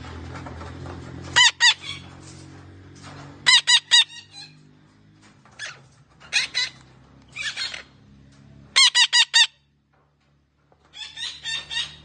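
Red-breasted parakeet giving loud, short, harsh calls in quick runs of two to four, repeated every second or two.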